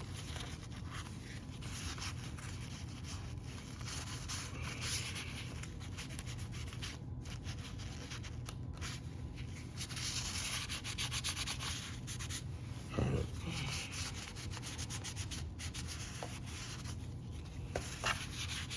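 Hands rubbing and pressing a thin adhesive gauge-face overlay onto a car gauge cluster's dial, in on-and-off stretches of rubbing, with a soft knock about thirteen seconds in. A low steady hum runs underneath.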